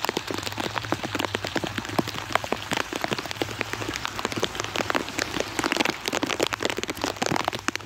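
Rain falling: a dense, steady patter of many separate drops.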